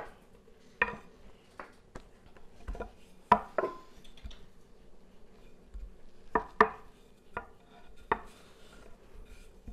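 Wooden rolling pin working floured dumpling dough on a wooden board, with a series of irregular knocks and taps of wood on wood.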